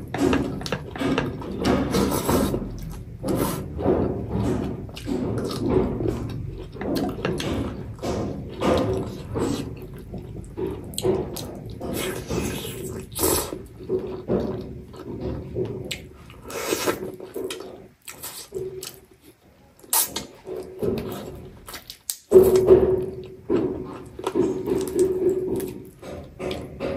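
Close-miked mukbang eating sounds: chewing and wet lip-smacking of chicken on the bone and rice eaten by hand, in irregular bursts, with a brief lull about two-thirds of the way through.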